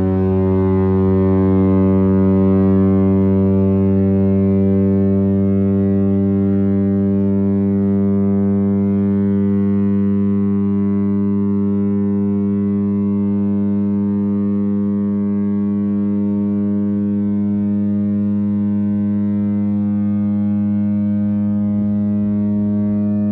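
Chrysler air raid siren, driven by its Hemi V8 engine, sounding a loud steady tone that holds its pitch without wailing: the alert signal. The tone is low and deep, rich in overtones.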